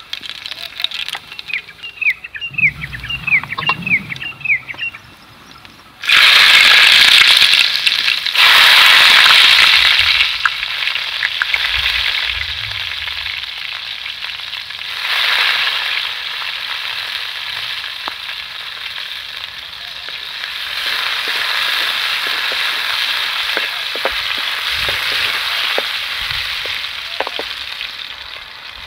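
Food added to hot oil in a kadai, starting to sizzle loudly all at once about six seconds in, then frying on steadily with a weaker sizzle that swells up again now and then.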